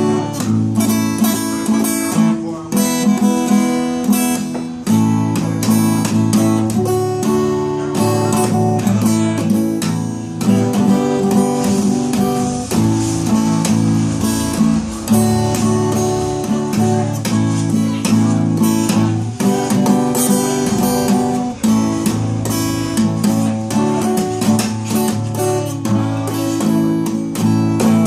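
Acoustic guitar being strummed, the chords changing every second or two.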